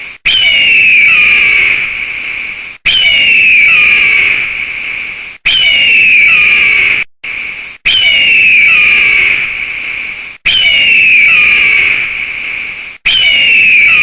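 Cartoon pteranodon screech sound effect, the same call repeated about every two and a half seconds. Each is a loud, shrill scream that starts abruptly, falls in pitch and fades.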